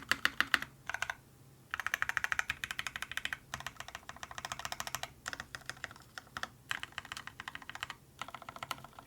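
Fast typing on a Duck Orion V2.5 mechanical keyboard with lubed and filmed H1 switches on a full aluminium plate: quick runs of keystrokes with brief pauses between bursts.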